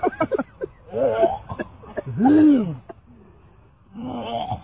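Men gagging and retching with coughs and throat clearing, in separate bursts, the loudest a long drawn-out retch about two seconds in: a reaction to the stench of an opened can of fermented herring.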